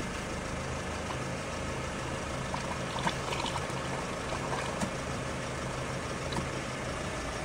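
Toyota RAV4 2.5-litre four-cylinder engine idling steadily while its transmission pumps old fluid out through a hose into a plastic tub during a fluid flush. A couple of faint ticks come about three and five seconds in.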